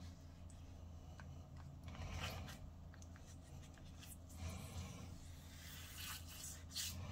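Faint scraping and rubbing of a plastic gel tube handled against tile grout, with a few short hissy bursts toward the end.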